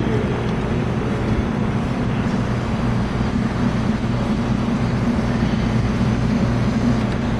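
A steady low hum with a constant rumble underneath and no distinct events.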